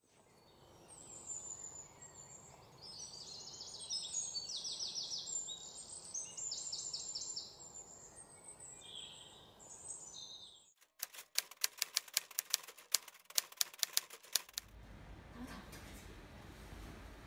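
Birds chirping and trilling for about the first ten seconds. Then a run of sharp, evenly spaced clicks, about four a second, lasting a few seconds. It gives way near the end to low room hum with faint laptop keyboard typing.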